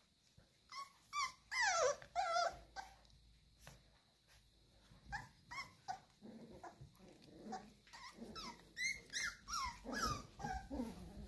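Five-week-old Cavalier King Charles spaniel puppies play-fighting: a few falling whines about two seconds in, then a long run of short, high yips and squeaks.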